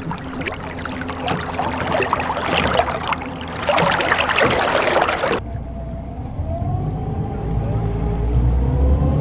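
Sea sound effect: water splashing and sloshing, as of waves against a sailing ship. About five seconds in it cuts off abruptly, giving way to a low rumble with a faint, slowly rising whine.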